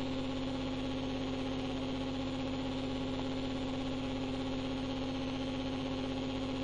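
Steady electrical hum with hiss in the background of a sermon recording, unchanging throughout and with no voice.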